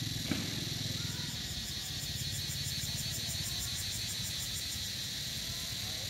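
A small engine running steadily, with insects trilling in rapid even pulses over it. A single sharp click about a third of a second in.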